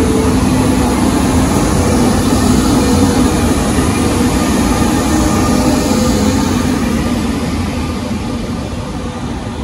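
A Siemens Taurus (ES64U2) electric locomotive, Hector Rail 242.504, moving slowly past with its train. Its traction equipment hums with a few steady tones over the low rumble of the wheels. The sound is loudest about three seconds in, then fades gradually as the coaches follow.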